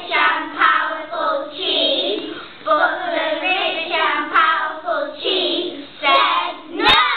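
A group of young children singing together in unison, with a single sharp click near the end.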